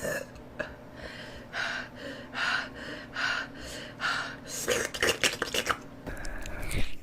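A person breathing audibly in a steady rhythm, roughly one breath a second, with a few short mouth clicks about five seconds in.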